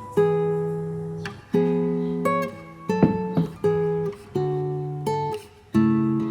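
Background music: acoustic guitar chords, struck about once a second and left to ring.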